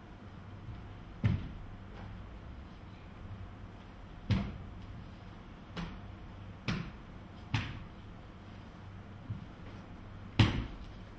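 Sharp thumps and slaps of a child performing a kenpo karate form barefoot on a wooden floor: foot stamps and hand strikes, about seven, spaced irregularly a second or so apart, each with a short echo, the loudest near the end.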